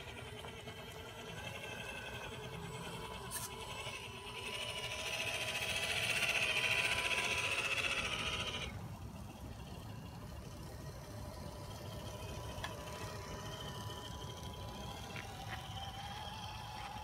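Traxxas TRX-4 RC crawler driving over paver stones, its electric motor and gears whining, with a wavering pitch as the throttle changes. It is loudest for about four seconds in the middle, with a grinding hiss of tyres and drivetrain, then settles back to a steadier whine.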